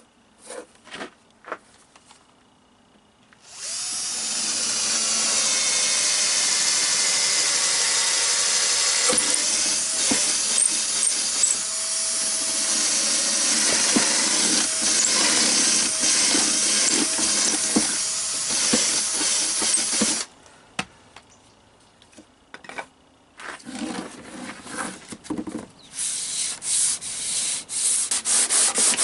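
A handheld power tool, drill-like, runs steadily for about sixteen seconds, its motor pitch dipping as it is pressed against the work. After a pause with a few short bursts, rapid back-and-forth rubbing strokes of sanding or scraping begin near the end.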